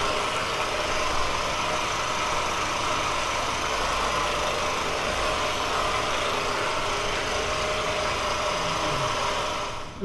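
Percussion massage gun running steadily against a person's back, a constant motor buzz that stops near the end.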